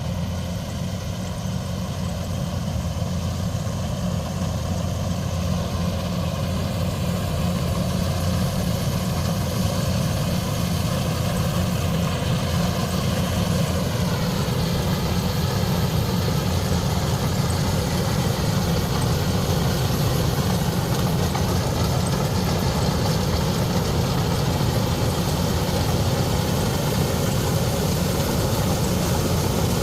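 Heavy diesel engine of farm machinery running steadily, with a slight shift in pitch about halfway through.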